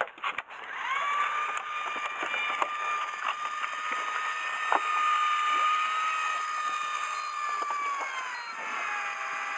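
A small electric motor whining steadily at one high pitch, sagging lower near the end as it slows or takes load, with a few light knocks from handling on the deck.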